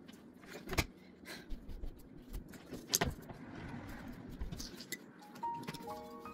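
Sharp plastic clicks and knocks from a Skip Hop activity center's frame as its legs and base are handled, with light rustling between them. The two strongest come about one second and three seconds in. Near the end a simple tune of held notes starts.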